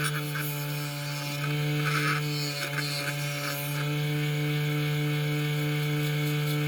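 Electric motor of a power tool running at a steady speed, with brief scraping or rubbing sounds over it during the first few seconds.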